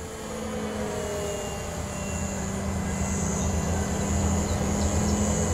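Electric motor and propeller of an Addiction XL radio-controlled aerobatic plane droning in flight overhead, a steady tone that drifts slightly lower in pitch and grows louder as the plane comes closer.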